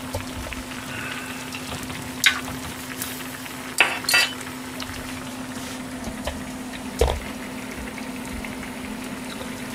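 Cabbage and vegetables cooking in water in metal saucepans on a gas stove, a faint steady hiss, with a few sharp clinks of a metal ladle against the pan as they are stirred. A steady low hum runs underneath.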